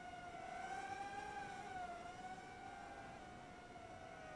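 Faint, steady whine of the XK X150 mini quadcopter's motors and propellers as it hovers, the pitch wavering gently.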